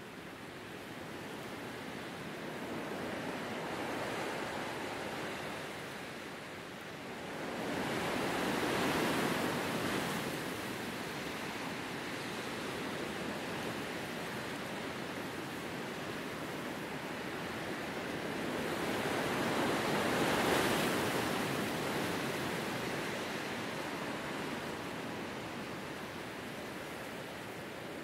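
Wind blowing through grass and a bare tree: a steady rush that swells in two gusts, about eight seconds in and again around twenty seconds in.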